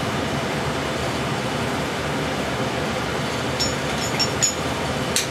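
A few light metallic clinks of a wrench and socket on a V8's cylinder-head bolts, starting about three and a half seconds in, with one sharper click near the end, over a steady background hiss.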